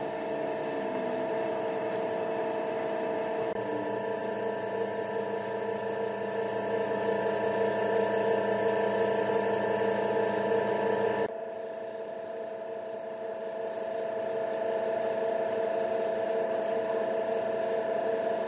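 Air spray gun hissing as it sprays clear finish onto wood, over a steady mechanical hum with several steady tones. The sound drops abruptly and changes about eleven seconds in.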